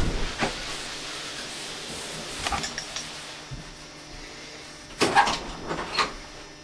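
Faint steady hiss of a small room with a few soft clicks and knocks, a cluster of them about five to six seconds in.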